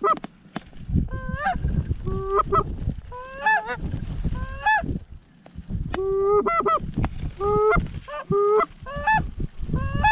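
A rapid run of loud goose honks and clucks, each breaking sharply from a low note up to a higher one, about one or two a second with a short pause near the middle, over a low rumble.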